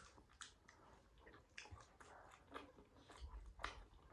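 Faint chewing and mouth sounds from eating momo dumplings: scattered soft clicks and smacks.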